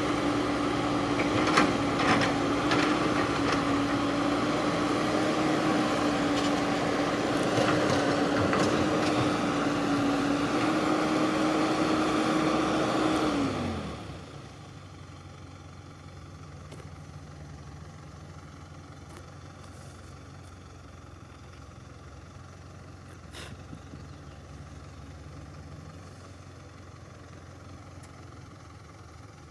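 Engine running steadily at high speed with scattered knocks. About halfway through, its pitch falls sharply and it drops to a much quieter low hum.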